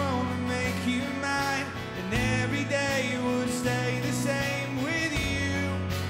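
Live rock band music: a strummed acoustic guitar and band backing under a male lead vocal singing long held notes.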